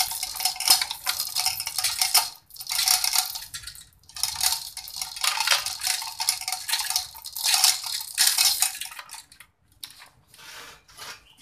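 Chain hoist's hand chain rattling and clinking as it is pulled hand over hand, in bursts of a second or two with short pauses. It dies away near the end.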